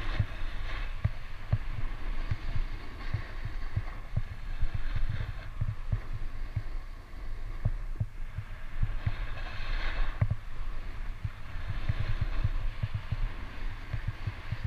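Snowboard sliding and carving over packed snow, a scraping hiss that swells and fades a few times. Wind buffets the action camera's microphone with a constant low rumble and irregular thumps.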